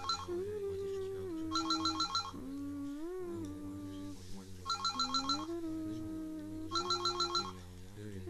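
Telephone ringing with short, rapidly trilling electronic rings that come in pairs, four rings in all, over a slow, wavering melodic tone that slides between held notes.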